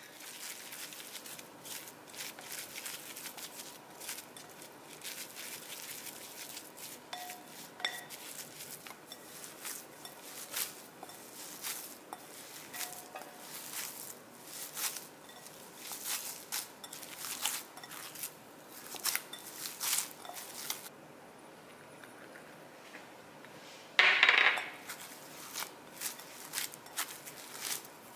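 Crumbly tofu and lupin-flake dough being stirred with a silicone spatula in a glass mixing bowl and then kneaded by hand, giving a run of soft scrapes and clicks against the glass. Near the end comes one louder clink with a short ringing tail.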